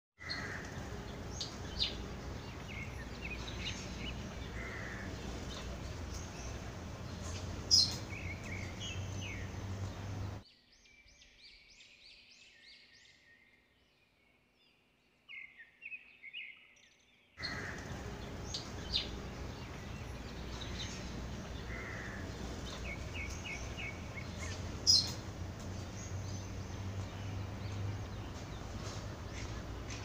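Small birds chirping in short high calls over steady outdoor background noise, with a sharp knock about 8 seconds in and again near 25 seconds. For several seconds in the middle the background drops away and only a few clearer chirps remain.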